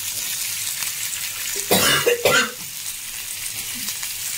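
Tandoori-marinated chicken pieces sizzling steadily as they fry in a nonstick pan. A person coughs twice in quick succession about two seconds in, from the pungent fumes of the dry red chilli in the marinade.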